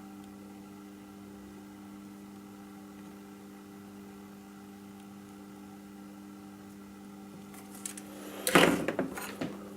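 A steady low hum throughout, with a short clatter of knocks and clicks from objects being handled near the end.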